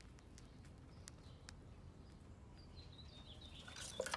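Gray squirrel crunching dried corn kernels: a few faint, sparse sharp clicks. A bird chirps faintly late on, and near the end a quick scrabble of claws on wood as the squirrel leaps out of the feeder box.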